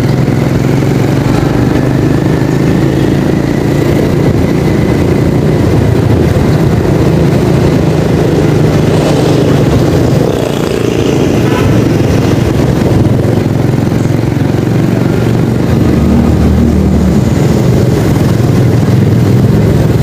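A motorcycle engine running steadily while it is ridden, heard from the saddle, with other street traffic around it.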